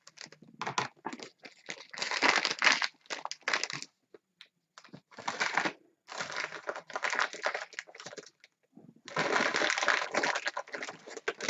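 A bag of dog treats crinkling as it is handled and opened, in several bursts of a second or two with short pauses between.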